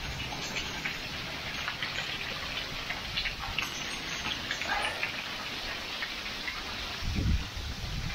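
Heavy thunderstorm rain coming down in buckets, a steady wash of rain with many small ticks of close drops. There is a brief low rumble about seven seconds in.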